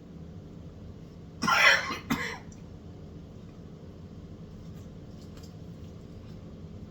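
A man coughs about a second and a half in: one harsh cough with a short second catch right after it. Then there is only a low steady room hum with a few faint ticks.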